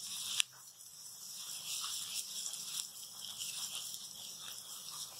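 Onions and crushed garlic sizzling in hot oil in a karahi while being stirred with a silicone spatula. A single sharp tap comes about half a second in.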